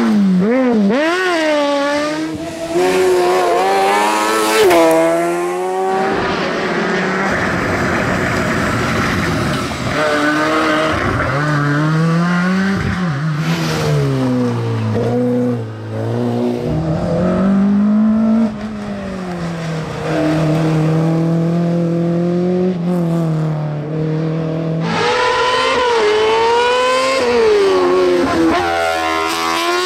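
Race car engines revving hard up a hillclimb course, several cars one after another. The pitch climbs and drops sharply at each gear change.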